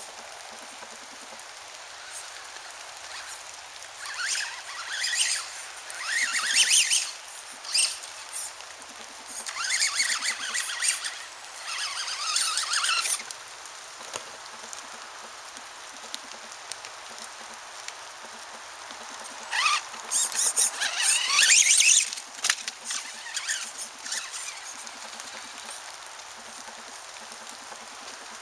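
Radio-controlled off-road buggy driving on loose dirt in three runs of a few seconds each: a high-pitched motor whine that rises as it speeds up, along with the hiss of its tyres on the dirt.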